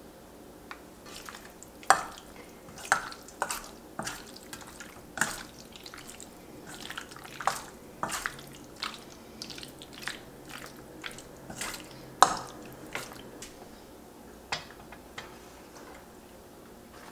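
Metal spoon clinking and scraping against a stainless steel mixing bowl as it stirs sashimi in a wet chili-paste marinade: irregular sharp clinks with soft wet sounds between them, the loudest about two seconds in and again about twelve seconds in.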